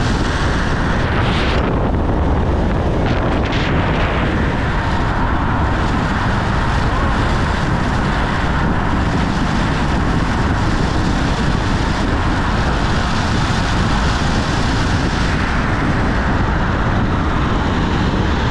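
Steady road and wind noise from a car being driven, with wind rumbling on the microphone.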